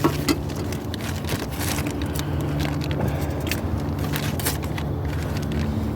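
Clinking and rustling of intake kit hardware and parts being handled, in quick irregular clicks, over a steady low hum.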